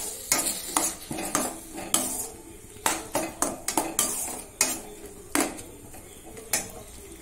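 A perforated steel spoon scraping and clinking against a stainless steel kadai while stirring ground tomato into sautéed onions, in irregular strokes that thin out near the end.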